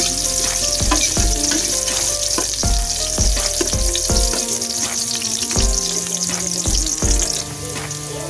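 Ginger, onion and garlic sizzling in hot oil in a stainless steel pot, with a metal spoon clinking and scraping against the pot about twice a second as it stirs. The sizzle thins near the end.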